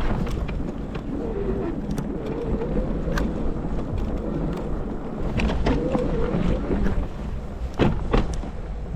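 Wind rumbling on the microphone and the steady noise of an e-bike riding through snow, with a faint wavering whine underneath and two sharp knocks near the end.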